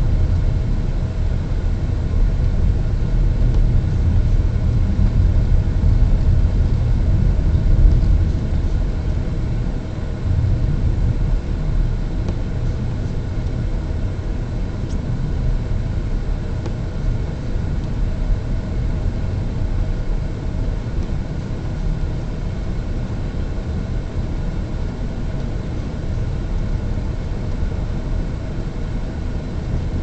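Steady low rumble of a moving car's engine and tyres on a snow-packed road, heard from inside the cabin, a little louder in the first third.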